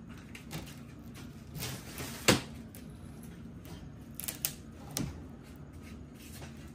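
Scattered knocks and clicks of a wooden shipping crate being taken apart, a side panel shifting against the frame; one sharp knock about two seconds in is the loudest.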